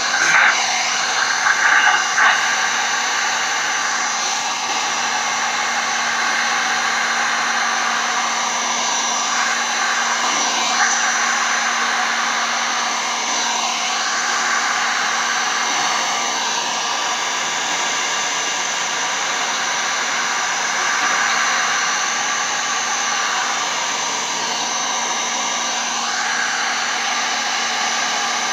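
Electric heat gun running steadily, blowing hot air across wet resin: an even rush of air with a steady hum from its fan motor.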